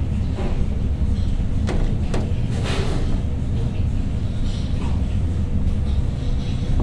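A steady low rumble, with a few light knocks and a rustle about two to three seconds in as a head of cabbage is handled on a cutting board.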